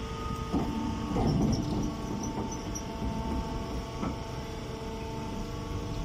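Hydraulic press baler's electric motor and pump running with a steady hum, with a few dull knocks over it.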